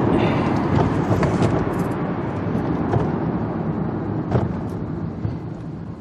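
Road, tyre and engine noise inside the cabin of a 2007 Lexus ES 350 slowing to a stop under braking, fading steadily as the car loses speed, with no squeal or grinding from the brakes. A single sharp click comes about four and a half seconds in.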